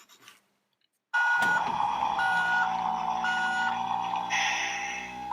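Electronic sound effects from a CAT Mini Mover toy excavator's speaker: a recorded engine running with reversing beeps, three beeps about a second apart, switching on abruptly about a second in, with a burst of hissing noise near the end.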